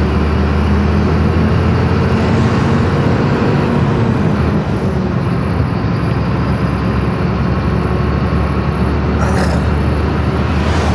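Inside the cab of a Mercedes-Benz Axor 1933 truck cruising on the highway: the diesel engine drones steadily under road and wind noise. Near the end there is a brief whoosh as oncoming traffic passes.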